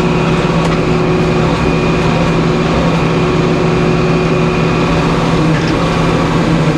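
Portable bandsaw sawmill running steadily, a constant low hum that holds its pitch.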